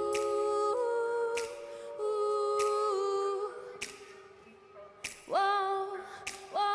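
Music without drums: a run of held chords with a vocal quality. It fades low about four seconds in, then swells back with a sliding rise in pitch just after five seconds.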